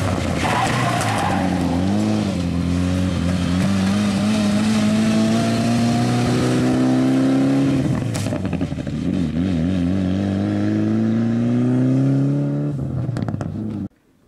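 Rally car engine at full throttle, pulling away with its pitch rising steadily. It shifts up once about eight seconds in, then climbs again until the sound cuts off suddenly near the end.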